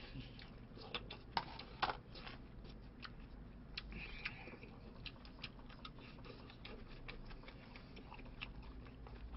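Faint eating sounds: scattered small clicks and taps of chopsticks and a spoon with chewing mouth noises, a couple of louder clicks in the first two seconds.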